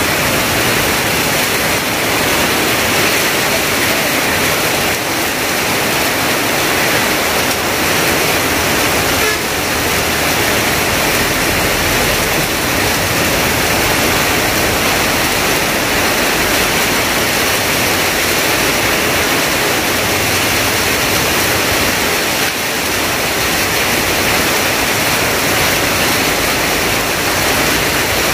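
Heavy monsoon rain pouring steadily onto tarpaulins, corrugated tin roofs and a flooded street, a dense unbroken hiss.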